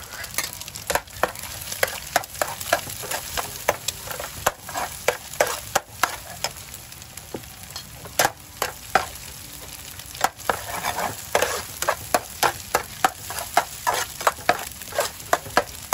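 Chopped chilies, garlic and shallots sizzling in hot oil with scrambled egg in a frying pan, while a metal spatula stirs and scrapes against the pan in quick repeated strokes. The strokes thin out for a few seconds in the middle, then come rapidly toward the end.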